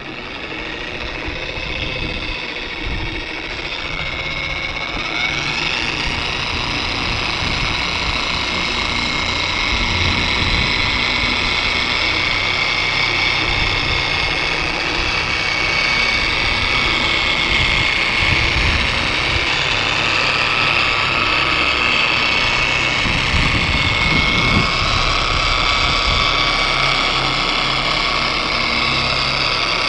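Bauer dual-action polisher running with its pad on the RV's front cap, buffing in wax. Its motor gives a steady high whine that builds over the first few seconds and then holds even.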